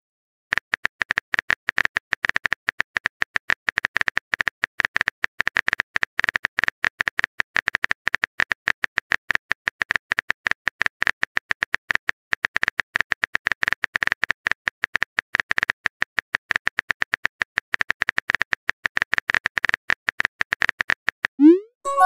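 Simulated phone keyboard clicks from a texting-story app, a rapid, uneven run of short taps as a long message is typed letter by letter. Near the end a short rising chime marks the message being sent.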